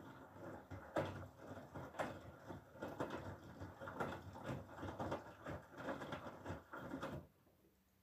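Whirlpool FSCR90425 front-loading washing machine tumbling wet laundry in its drum during a wash cycle: an uneven run of splashing and soft thuds as the clothes drop through the water, which stops suddenly about seven seconds in as the drum comes to rest.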